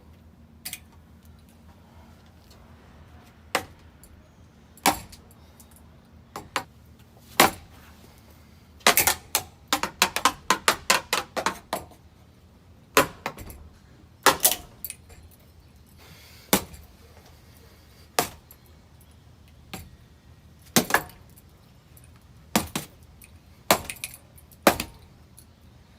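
Ceiling fan running with a low hum while something on it clinks and clanks in sharp, irregular hits, with a quick flurry of them about nine to twelve seconds in.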